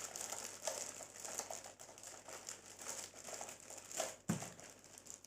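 Plastic packaging crinkling and rustling as small sewing-machine accessories are handled, with one light knock a little after four seconds in.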